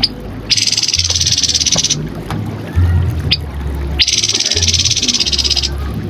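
Grey-headed babbler singing: two long, rapid buzzing trills of about a second and a half each, with short sharp high notes between them, over a low droning hum.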